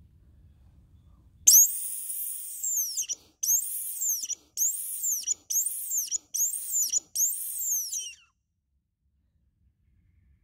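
A loud, high squeaky call repeated six times, each note arching up and then down in pitch, starting about a second and a half in and stopping about two seconds before the end.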